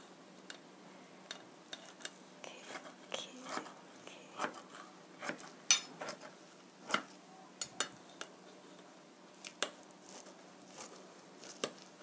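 Kitchen scissors snipping through a pan-fried dumpling pancake on a ceramic plate, with metal chopsticks holding it down: irregular sharp snips and clicks, roughly one a second, a few louder than the rest.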